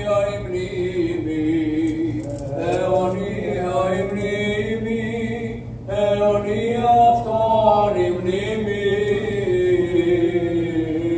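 Byzantine Orthodox chant: voices sing a slow melody over a low held drone, with short breaks between phrases about two and six seconds in.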